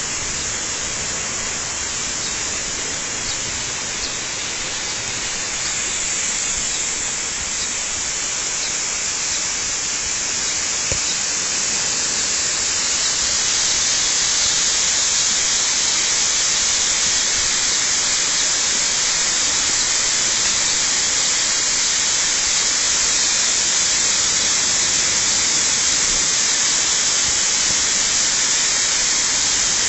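Waterfall rushing: a steady hiss of falling water that grows a little louder about halfway through.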